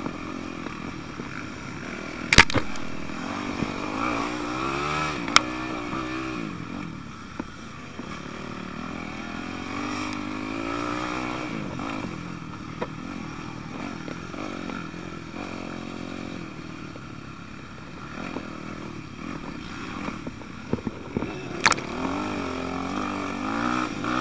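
Yamaha YZ250F four-stroke dirt bike engine revving up and backing off again and again while riding. Three sharp knocks cut through, at about two seconds, five seconds and near the end.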